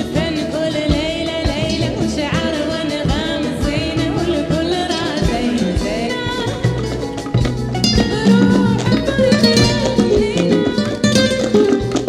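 Flamenco fusion music: a singing voice over percussion and instruments.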